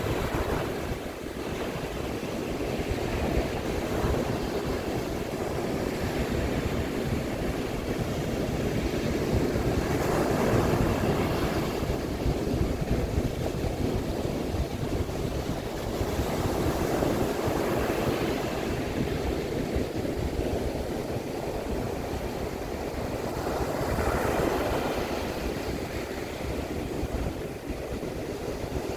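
Baltic Sea surf breaking on a sandy beach in a steady wash, swelling every several seconds as each set of waves comes in, with a low rumble of wind on the microphone underneath.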